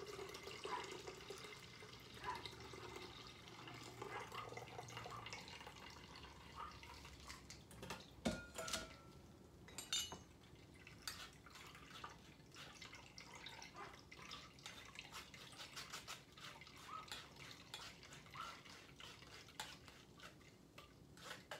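Cucumber juice pouring and dripping through a fine-mesh strainer into a stainless steel bowl, with scattered light metal clinks of spoon, strainer and bowl. The sharpest clinks come about eight and ten seconds in.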